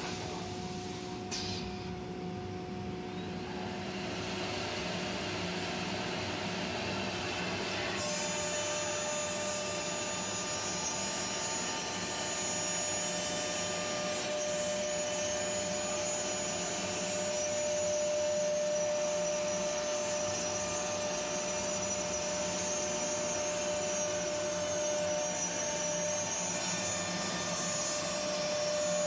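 Four-spindle CNC router running, its spindles whining steadily as the bits cut into a wooden panel, over the rush of air in the dust-extraction hoses. A higher whine joins about eight seconds in.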